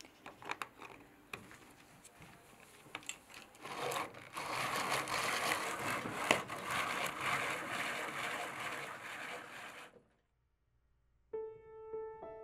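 Almonds clattering into the hopper of a hand-cranked rotary drum nut grater, then from about four seconds in the drum is cranked, grinding them into meal in a continuous scraping noise that stops abruptly about ten seconds in. A piano tune starts near the end.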